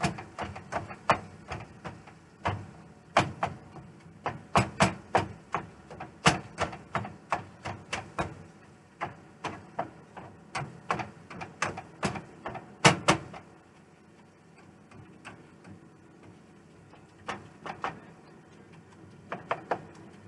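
Meat chopper jabbing ground chuck against a nonstick skillet: a quick, uneven run of sharp knocks and clacks, two or three a second, thinning to a few scattered taps past the middle.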